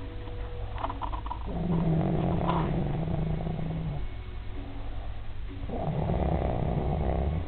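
A man snoring in his sleep: two long snores, the first starting about a second and a half in and the second near the end, with a quieter breath between them.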